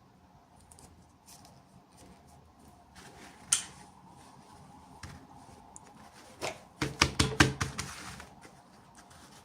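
Hands handling small plastic toy packaging during an unboxing: faint rustling, a sharp click about three and a half seconds in, then a quick run of clicks and taps near the end.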